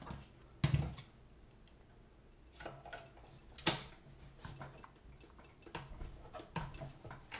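A screwdriver clicking and knocking against the plastic governor gear ring inside the metal crankcase of a Honda-clone engine as it is pried and beaten loose from its shaft. The strokes come at irregular spacing, about seven of them, the sharpest about a second in and near the middle.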